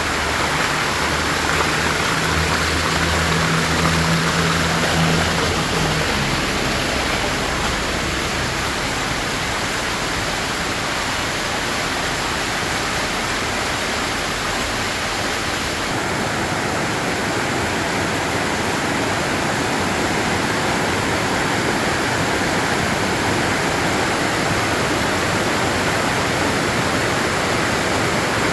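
Waterfall water flowing and splashing in a steady, even rush.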